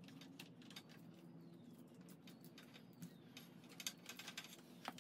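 Faint clicks and light rattles of a new motorcycle drive chain being pulled round the rear sprocket by hand, busier near the end, over a low steady hum.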